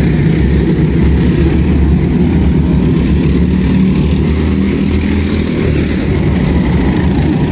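Small go-kart engines running on the track, a steady low engine drone with no let-up.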